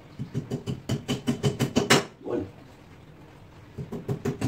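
Rapid tapping knocks on a metal towel-bar bracket against a tiled wall, about six a second. The knocks come in a run of about two seconds, stop, and start again near the end.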